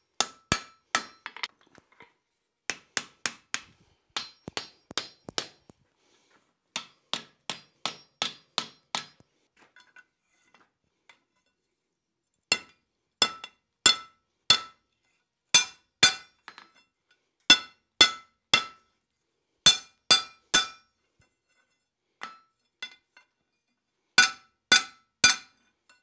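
Hand hammer striking red-hot steel on an anvil in runs of blows, about two a second, each with a short bright metallic ring. There is a pause of a few seconds about ten seconds in. The blows are drawing the hot bar down.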